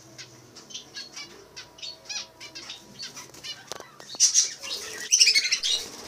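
Budgerigars chirping in short, rapid calls with wings fluttering. Louder bursts of chirping come about four seconds and five seconds in.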